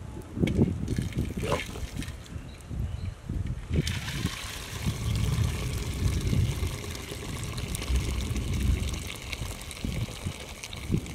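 Hot cooking water poured from a tilted, lidded pot into a clay pot, running as a steady splashing stream from about four seconds in. Before that there are a few knocks as the pot and lid are handled.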